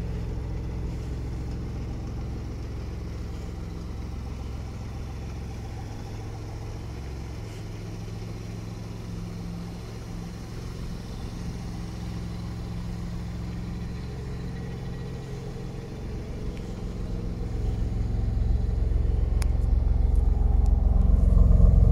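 Dodge Stealth twin-turbo's 3.0-litre V6 idling steadily. It grows louder over the last few seconds, heard up close to the twin exhaust tips.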